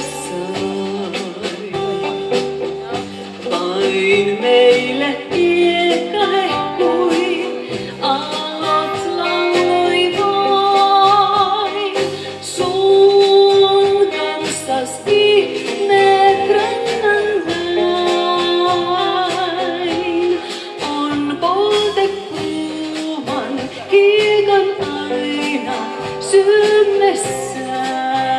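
Live band playing an instrumental passage of a slow rautalanka song: a lead electric guitar carries the melody over bass guitar and drums.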